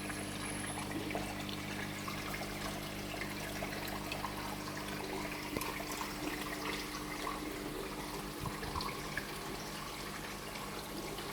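Aquarium water trickling and bubbling steadily, over a low steady hum from the tank's pump or filter.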